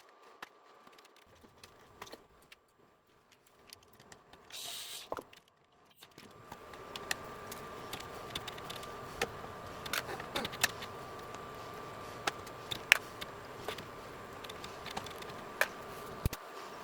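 Scattered small clicks and light metallic rattles of hands handling screws and a TV power supply board as it is taken out. About six seconds in, a steady background hum with a faint high tone starts and stays.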